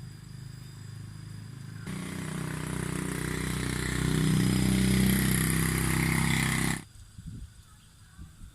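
A small engine running steadily and growing louder over several seconds, then cutting off suddenly near the end.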